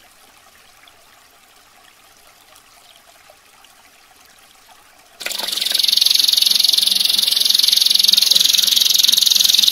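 A faint trickle of running water, then about five seconds in a domestic canary suddenly breaks into a loud, high-pitched, rapid rolling trill (the 'tembakan' or 'ngerol' song prized in canary training recordings), held without a break.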